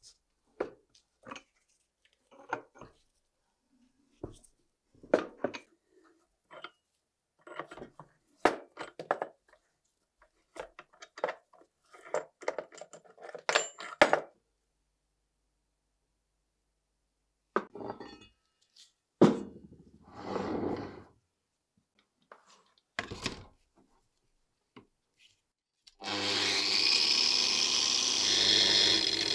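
Rusty steel gun parts knocked, clicked and scraped against each other as they are worked loose by hand. Near the end an angle grinder fitted with a wire wheel starts and runs steadily.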